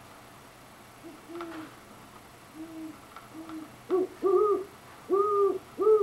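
Great horned owl hooting: a series of deep hoots starting about a second in, the first three softer and spaced out, then four louder hoots in quicker succession.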